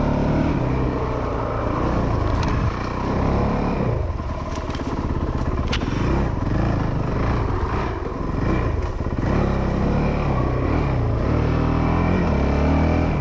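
Honda CRF450L's single-cylinder four-stroke engine running as the dirt bike is ridden over a rough trail, its note rising and falling again and again with the throttle. A few sharp knocks come through.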